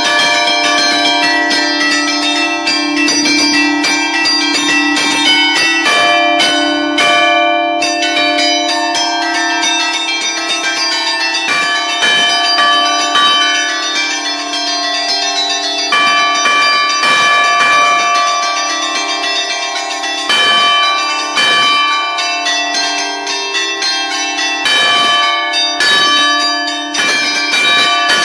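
Five-bell church peal in D, cast by Barigozzi in 1952, ringing close up in the belfry: rapid, overlapping strikes of different pitches over a steady low hum.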